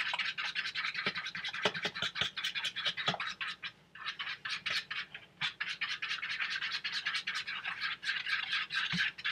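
Metal fork whisking beaten eggs and vegetable puree in a bowl: rapid scraping and clicking strokes against the bowl, with a short pause about four seconds in.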